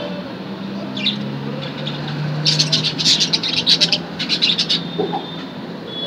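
Budgerigars chirping: a single sharp chirp about a second in, then a quick run of many rapid, high chirps for about two seconds, over a low steady hum.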